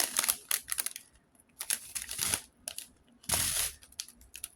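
Small plastic bags of diamond-painting drills crinkling as they are handled, in short irregular crackles, with a longer, louder rustle near the end.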